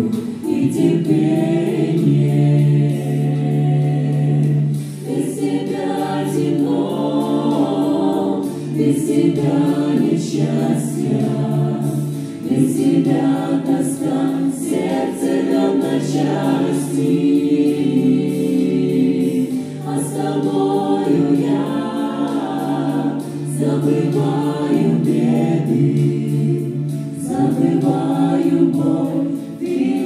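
Mixed vocal ensemble of men and women singing a Russian-language Christian song in harmony into microphones, holding chords in phrases that break every couple of seconds.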